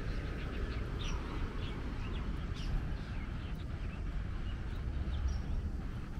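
Many small birds chirping in short, scattered calls, over a steady low rumble.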